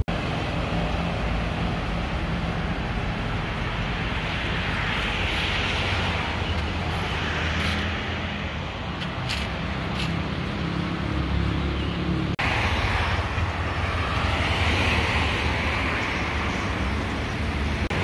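Road traffic on a busy multi-lane road: a steady engine rumble with cars and motor scooters swelling past, loudest about a third of the way in and again at about three quarters.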